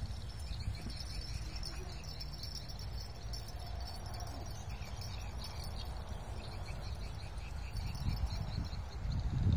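Outdoor ambience: insects chirping in steady, evenly repeating pulses over a low wind rumble on the microphone.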